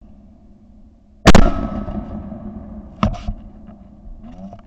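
Two shotgun shots about a second and three-quarters apart, the first the louder, each a sharp blast with a short fading ring after it.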